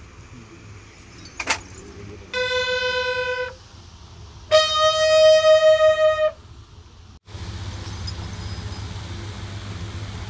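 Military bugle sounding two long held notes, the second higher, louder and longer, during a funeral salute; a sharp crack comes just before the first note. About seven seconds in, the sound changes abruptly to a steady low background rumble.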